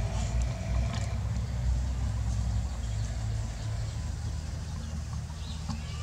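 A low, steady engine-like rumble with a few faint clicks.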